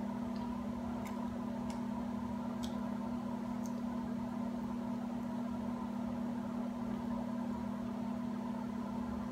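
A steady low mechanical hum, even throughout, with a few faint clicks in the first four seconds.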